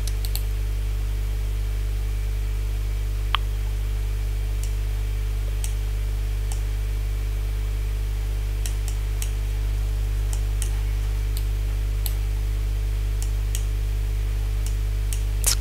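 Steady low electrical hum with a few faint, scattered clicks of a computer mouse being used.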